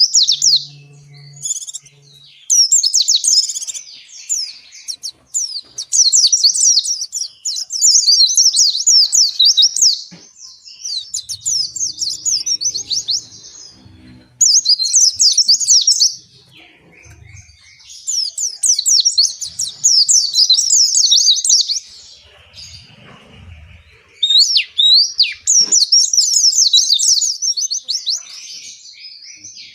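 White-eye (pleci, Zosterops) singing a long run of fast, high, twittering warbles, in phrases of one to three seconds with short pauses between them.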